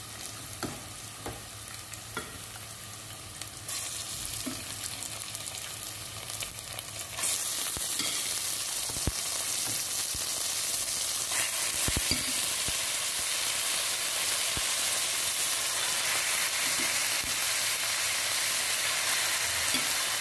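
Raw chicken pieces sizzling in hot oil in a pot with sautéed ginger, onion and garlic. The sizzle gets louder in two steps, about four seconds in and again about seven seconds in, as more pieces go in, with a few light knocks among it.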